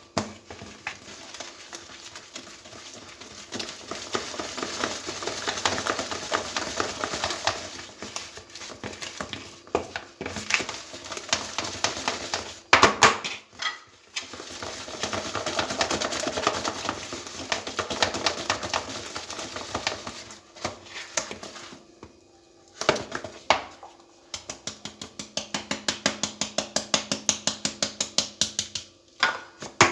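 Cake batter being mixed by hand in a bowl, with the utensil knocking and scraping against the bowl in runs of strokes, a few short pauses, and quick, even strokes near the end.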